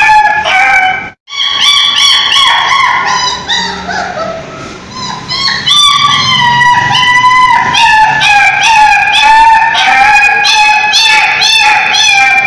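Puppy whining and crying: a rapid, nearly continuous run of high-pitched whimpers, each bending in pitch, cut off by a brief dropout about a second in.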